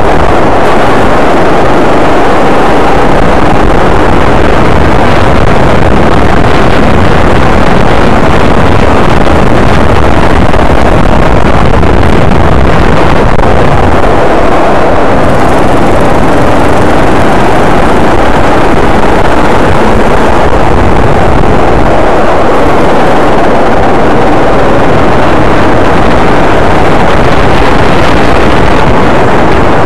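Go-kart engine running hard, heard loud and close from an onboard camera, its note wavering up and down with the throttle, mixed with wind rushing over the microphone.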